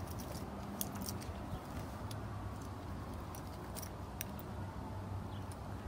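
Scattered light clicks and small rattles of a cable and its connectors being handled, over a steady low hum.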